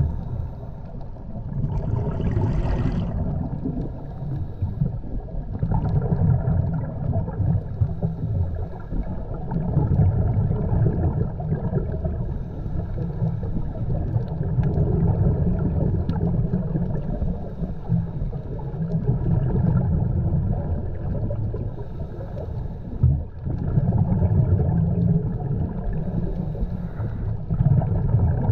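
Underwater sound picked up by the camera: a steady low rumble of water that swells and fades every four seconds or so, with gurgling.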